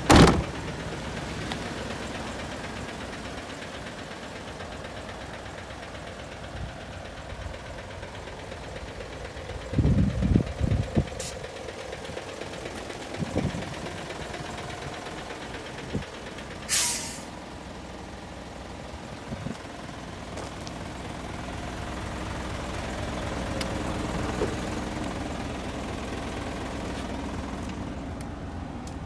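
Isuzu Giga heavy truck's diesel engine idling steadily, with a loud knock at the very start, a cluster of low thumps around ten seconds in, and a short hiss of air about seventeen seconds in.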